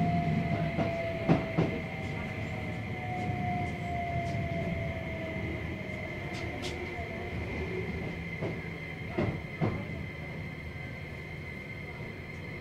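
Keio Series 5000 electric train running, heard inside the car: the traction motor whine falls slowly in pitch over a steady rumble of wheels on rail, a sign of the train slowing. A steady high tone sits above it, and two pairs of clacks sound as the wheels cross rail joints, about a second in and about nine seconds in.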